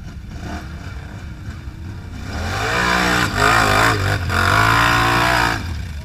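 ATV engine revving hard under load, its pitch wavering up and down as the quad churns through a deep mud rut. It swells about two seconds in and falls back near the end.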